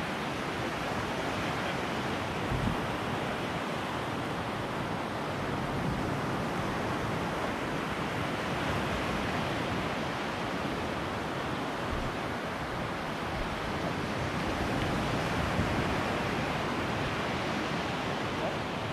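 Steady sound of surf breaking and washing up a sandy beach, with some wind.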